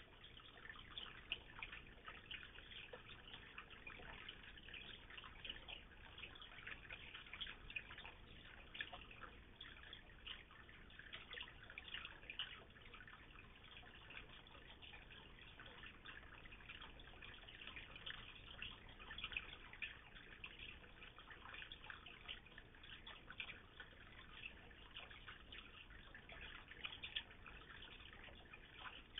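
Faint water trickling and dripping into a koi pond: a steady, dense patter of small drops.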